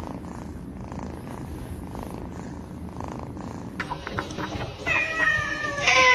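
Domestic cat purring close up, a low rumble that swells and fades with its breaths. About four seconds in it gives way to a few clicks and then a steady pitched sound with several tones.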